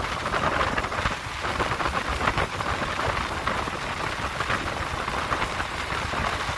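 Wind rushing and crackling over the microphone on a Bajaj Pulsar 220F motorcycle riding at speed, a steady noise with a low rumble of engine and road underneath.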